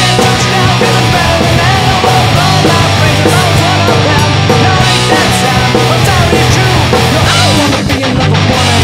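Rock band music: electric guitar, bass guitar and drums playing together.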